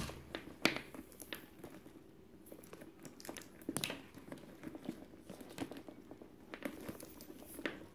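Leather tote bag being handled: soft rustling with a few light clicks as its shoulder strap's clip is worked at the bag's hardware.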